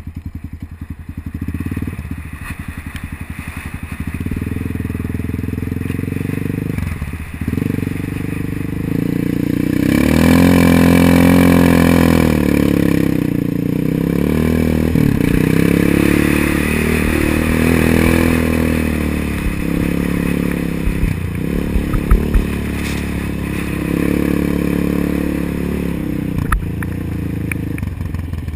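ATV engine idling, then running under varying throttle, its pitch rising and falling and loudest around ten seconds in. A few sharp clattering knocks come in the second half.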